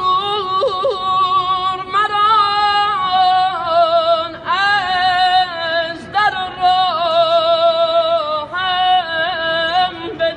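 A man singing a devotional song to Imam Reza solo in a high voice. He holds long, ornamented notes that waver and bend in pitch, with short breaks between phrases every second or two.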